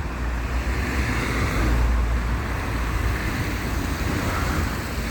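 Steady flow of road traffic, with wind rumbling across the microphone.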